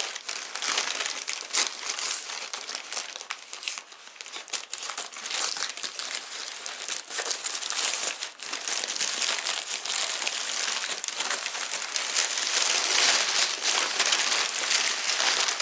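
Crumpled paper and plastic packing wrap being handled and pulled apart by hand as an orchid is unwrapped: continuous crinkling and rustling with many small crackles, louder near the end.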